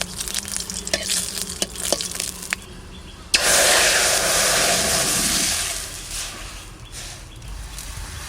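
Mustard seeds crackling and popping in hot mustard oil. About three seconds in comes a sudden loud sizzle that lasts about two seconds and dies away.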